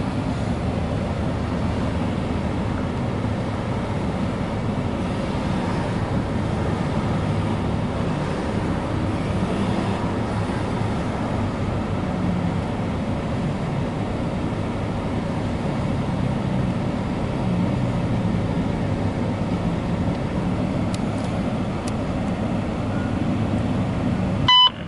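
Steady low vehicle rumble heard from inside a car's cabin. Near the end it cuts out briefly and a short radio beep sounds.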